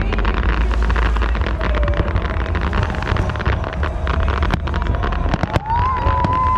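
Fireworks crackling in dense rapid clusters over a strong low rumble, with wind on the microphone. A steady whistle-like tone sounds for about two seconds near the end.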